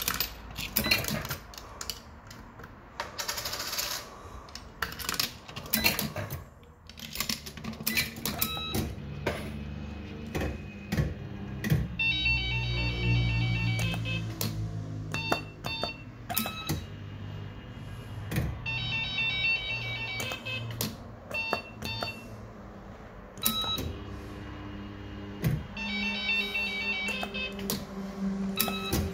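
Bell-Fruit Firecracker fruit machine in play: many sharp mechanical clicks, with a short electronic beeping tune three times, about seven seconds apart, over a steady low hum.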